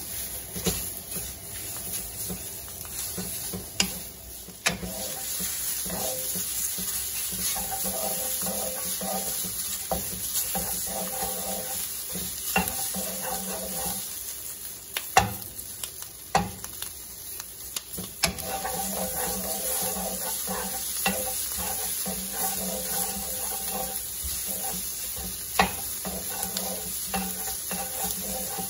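Egg-coated shrimp sizzling in a frying pan while a wooden spatula stirs and scrapes them around, with a sharp tap of the spatula against the pan every few seconds.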